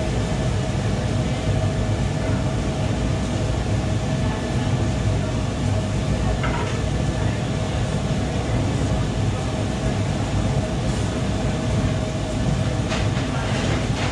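Steady rumble of a commercial kitchen's extractor hood and lit gas range, with a constant hum. A few faint clatters of utensils about halfway through and near the end.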